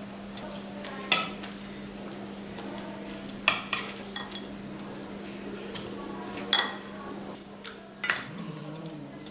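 Metal serving spoon clinking against a curry bowl and a steel plate as chicken curry is served out, about four sharp clinks spread over several seconds, with softer hand-mixing sounds between them. A steady low hum runs underneath.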